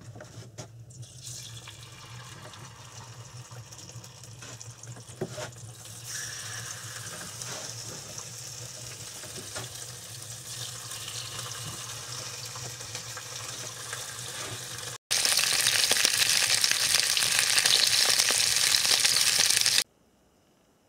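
Pieces of fresh pike sizzling in hot oil in a frying pan, with a couple of light knocks as the pieces go in; the sizzle grows louder about six seconds in. Near the end a much louder hiss runs for about five seconds and then cuts off abruptly.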